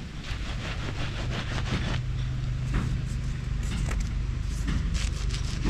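A motor vehicle engine running steadily with a low hum, with irregular scraping and rustling over it.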